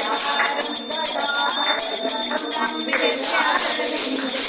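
Hindu devotional song playing, with a jingling percussion beat.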